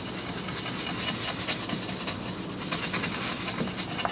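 Small ink-blending tool rubbed and dabbed in quick strokes over cardstock, a steady scratchy rubbing with many small taps as green ink is blended on.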